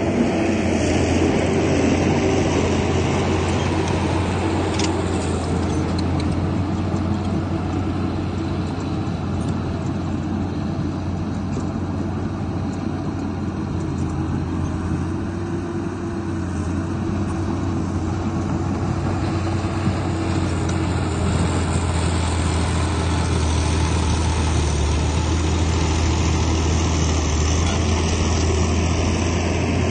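Heavy diesel earthmoving machinery (bulldozer and dump trucks moving soil) running steadily with a deep engine hum, easing slightly around the middle and building again after about twenty seconds.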